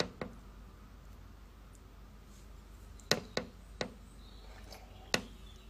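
Someone drinking from a glass of water: a few short, faint clicks and swallows about three seconds in, and one more near the end, over quiet room tone.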